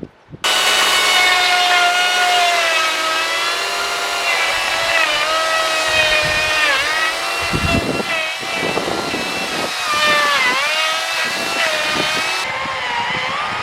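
Greenworks 82CS34 82-volt battery chainsaw switching on about half a second in and running at full speed with a high electric whine and chain noise. It cuts wood, and its pitch sags several times as the chain bites under load.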